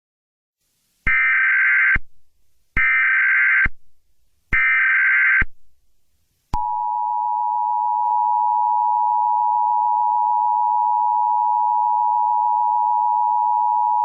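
Emergency Alert System tones: three short bursts of SAME header data, each about a second long with short gaps between them. About a second later the steady two-tone EAS attention signal begins and holds. The header bursts and attention tone mark the start of an emergency alert broadcast.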